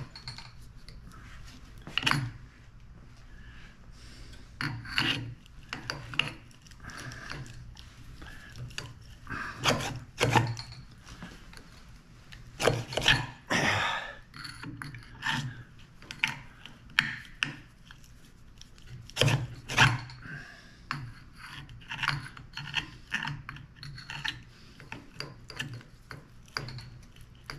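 Metal tool scraping, prying and clinking inside a Mag-Lite flashlight's aluminium tube as a stuck, corroded battery is worked loose. The strokes come irregularly, with a few louder scrapes.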